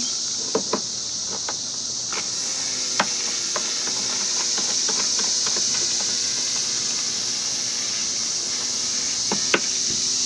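Scattered sharp plastic clicks and knocks of a YakAttack RotoGrip paddle holder being fitted and locked onto a kayak's rail. Under them is a steady high insect chorus.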